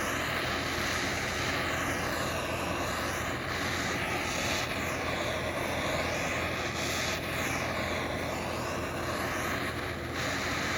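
Steady rushing noise of moving air with no clear pitch and a slowly swirling, phasing quality.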